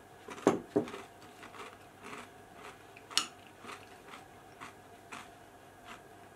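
A metal spoon knocking and clinking against a glass bowl of yogurt, granola and banana, with two heavier knocks about half a second in and a sharp clink about three seconds in. Between the knocks come small crunching ticks of granola being chewed, about two a second.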